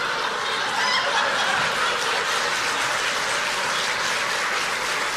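Theatre audience laughing and applauding, a steady, dense wash of crowd noise.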